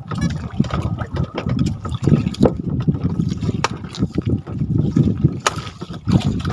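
Water sloshing and splashing in uneven surges, with a few sharp knocks scattered through.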